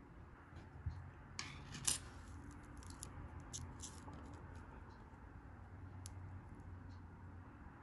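Small crisp clicks and ticks of handling wooden-stick candies on a paper sheet, with a brief rustle-like cluster about one and a half seconds in.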